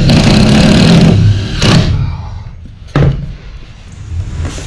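Ryobi cordless impact driver running hard as it sinks a self-tapping Teks screw through a wooden strip into the bus's sheet-metal wall, for about a second, then a shorter burst and a single sharp click a couple of seconds in.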